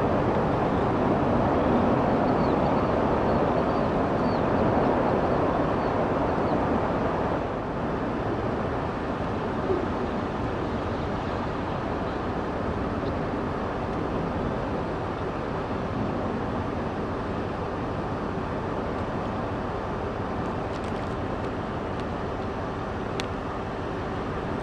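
Steady rushing wind from the tornado's storm, loud on the microphone, easing a little about seven seconds in.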